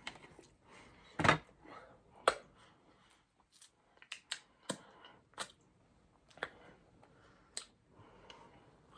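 Close-mic chewing of a mouthful of cupcake: scattered, irregular wet mouth clicks, the loudest a little over a second in and again about a second later.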